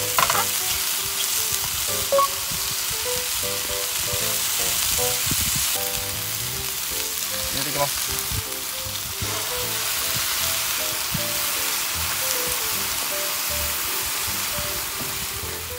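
Beef and vegetables (bean sprouts, komatsuna, shimeji mushrooms) sizzling steadily in a frying pan as they are stir-fried, with a few short knocks along the way.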